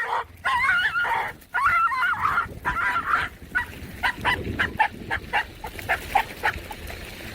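A dog vocalizing: wavering, warbling whines for the first few seconds, then a quick run of short high yips, about three a second.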